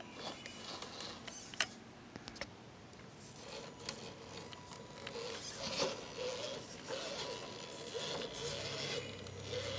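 Scale RC rock crawler's electric motor whining at crawling speed, the whine wavering in pitch with the throttle and growing louder after a few seconds, with scattered clicks and scrapes of its tyres on stone. A low steady hum joins near the end.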